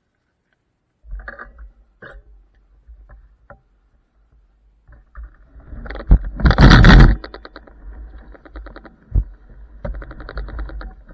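Rattling and scraping from the low-mounted camera and frame of an IO Hawk Legend electric scooter as it rolls off slowly over a rough path. A few knocks come in the first few seconds, then a fast even rattle with a loud burst of noise about six to seven seconds in.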